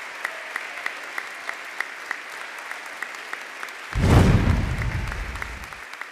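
Large crowd applauding steadily, individual claps standing out. About four seconds in, a sudden loud, deep rumbling sound effect comes in over the clapping and dies away within about two seconds.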